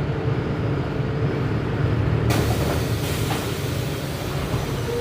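Mercedes-Benz OF 1519 bus's four-cylinder diesel engine running with a steady low drone. About two seconds in, a steady hiss sets in over it.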